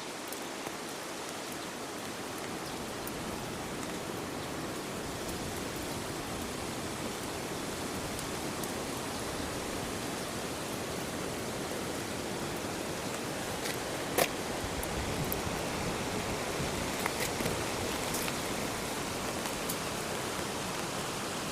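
Steady rushing noise of water, with one sharp click about fourteen seconds in and a few fainter ticks a few seconds later.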